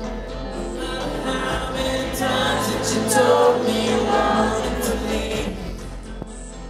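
Live rock band music with singing, heard over an arena's PA. It swells to its loudest in the middle and eases off near the end.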